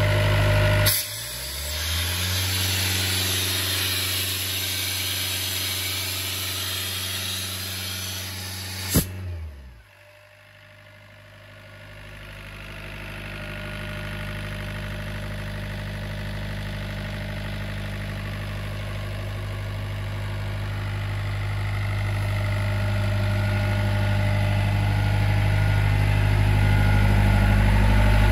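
Doosan 7/41 compressor's four-cylinder Yanmar diesel engine running steadily at idle. About nine seconds in there is a click and the sound falls in pitch and drops away. The engine's steady low hum then returns and grows gradually louder toward the end.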